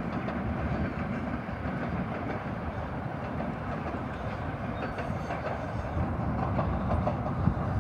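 Long Island Rail Road M7 electric commuter trains passing at a distance: a steady rumble of wheels on the rails.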